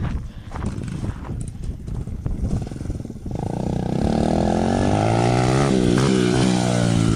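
Honda XR100 dirt bike's single-cylinder four-stroke engine, heard coming in about halfway through and growing louder as the bike approaches. Its pitch dips and rises as it passes close near the end; the engine note is a buzz.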